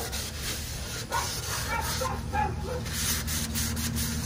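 Gloved hand rubbing over the freshly sanded inside of a red oak crotch hollow form, a dry scratchy rubbing in quick irregular strokes, over a steady low hum.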